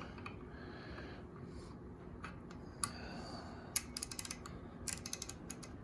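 Faint, small clicks from a freshly greased Craftsman 3/8-inch drive ratchet mechanism being handled. A few single clicks come first, then quick runs of ticking about four and five seconds in.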